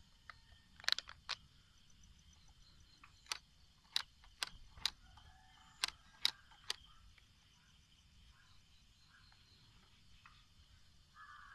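Faint steady chirring of insects, with about ten sharp clicks scattered through the first seven seconds.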